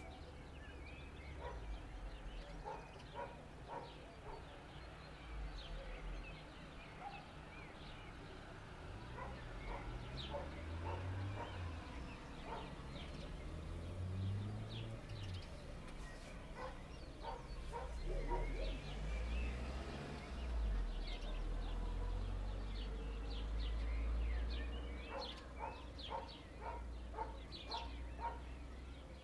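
Outdoor ambience of short animal calls repeating throughout: birds calling and a dog barking, more often near the end. Underneath is a low rumble that grows louder in the second half.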